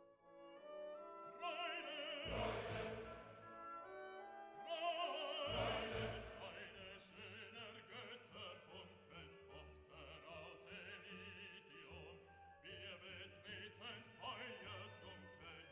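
Background music: a classical-style piece with a singing voice holding long, wavering notes over an instrumental accompaniment, loudest in the first few seconds.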